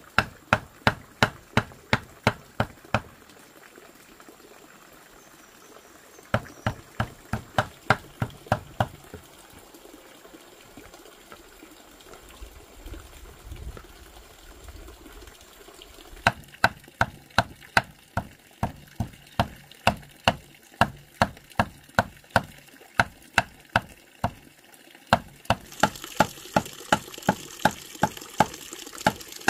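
A cleaver mincing meat on a wooden chopping board, quick even chops about three to four a second, in runs broken by short pauses. Water pours steadily from a bamboo pipe into a basin underneath, louder near the end.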